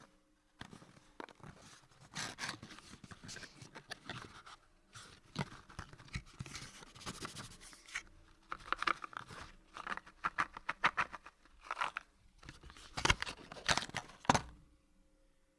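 Cardboard box being handled, with flaps rustling, scraping and rubbing, and a run of sharper knocks near the end.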